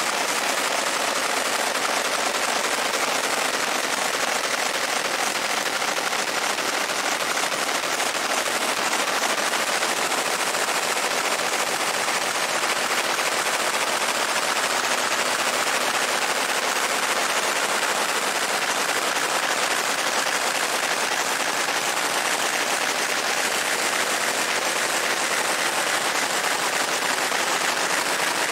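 Fiber laser engraving a steel Glock 19 slide: a steady, dense, rapid crackling buzz as the pulsed beam marks the metal.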